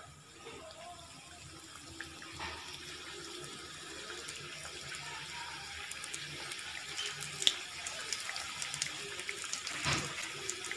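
Samosas sizzling as they fry in hot oil and ghee in a kadhai. The sizzle builds gradually, with scattered crackles and a few sharper pops in the second half.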